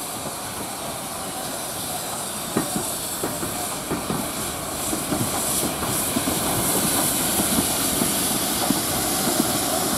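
GWR Hall class 4-6-0 steam locomotive 'Pitchford Hall' moving slowly past with hissing steam and scattered clanks and clicks from its wheels and motion, getting louder as it comes closer; the hiss strengthens about halfway through.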